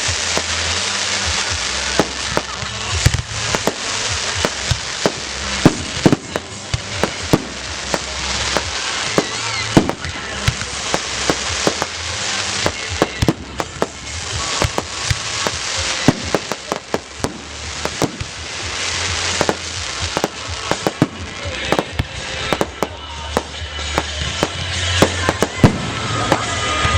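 Fireworks display: many sharp bangs and crackles at irregular intervals, with music playing underneath.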